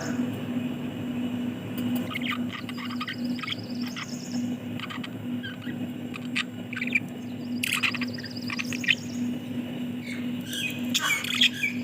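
Budgerigars chirping and chattering in short, scattered calls that come in clusters, over a steady low hum.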